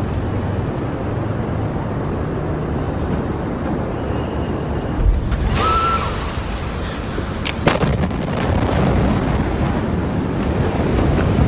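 A loud, continuous rushing rumble, with a low boom about five seconds in and a sharp crack a little before eight seconds.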